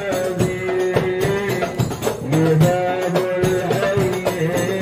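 Live hadrah music: voices singing a sholawat melody in long, wavering lines over rebana frame drums and a large bass drum beating out the rhythm.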